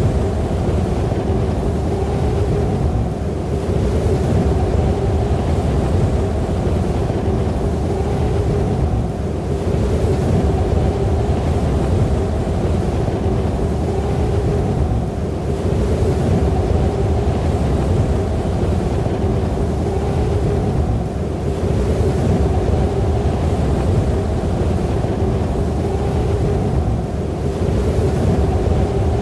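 Snowstorm wind blowing hard: a steady low rush with a held howling tone in it, easing briefly about every six seconds and picking up again.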